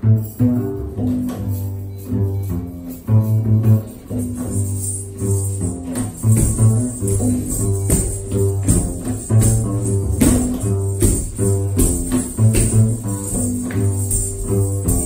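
Double bass playing a repeating line of deep notes, with sharp jingling strikes scattered over it several times a second.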